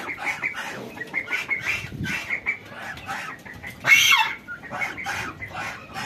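Poultry clucking and peeping in a run of short calls, with one louder call about four seconds in that slides down in pitch.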